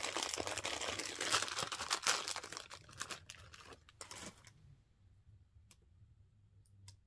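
Packaging of a pack of butterfly hair clips crinkling and tearing as it is opened by hand, for about four and a half seconds, then a few faint clicks of the small clips being handled.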